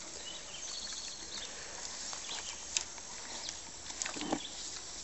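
Pigs feeding at a trough: low grunts and eating noises, with a couple of sharp clicks.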